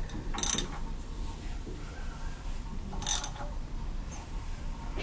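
Socket ratchet clicking in two short bursts, about half a second in and again about three seconds in, as a 4G63 engine's crankshaft is turned by hand to bring cylinder number one to top dead center.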